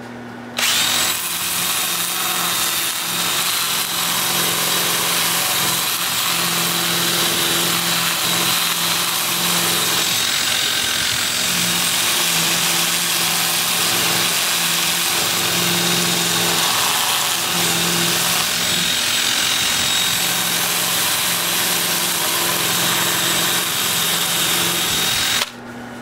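Cordless drill spinning a Sand-O-Flex flap sander, its sandpaper strips rasping against a juniper bowl. The motor runs steadily with a thin high whine, starting about half a second in and cutting off suddenly just before the end.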